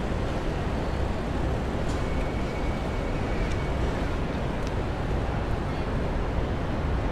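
Steady city street noise of passing road traffic, a dense rumble with no single vehicle standing out.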